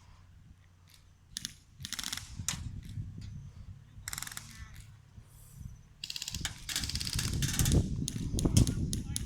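Airsoft guns firing short bursts, a rapid mechanical rattle of clicks. The bursts come a few at a time at first, then the clicks and knocks grow thick and busy from about six seconds in.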